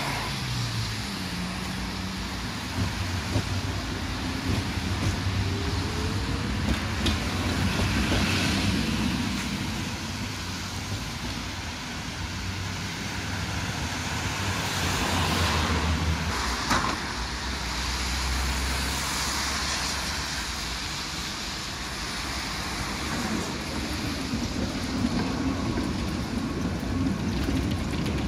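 City street traffic with vehicles passing in swells over a steady low hum, a short rising whine and a few sharp clicks.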